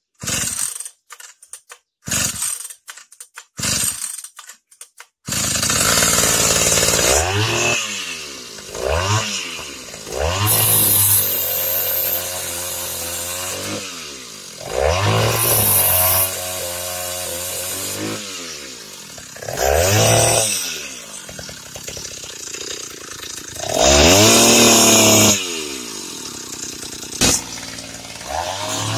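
Taiga 214 two-stroke chainsaw engine, rebuilt to drive a cut-off disc by belt, being pull-started: it sputters in several short bursts and catches about five seconds in. It then runs at idle and is revved up again and again, each rev rising and falling back.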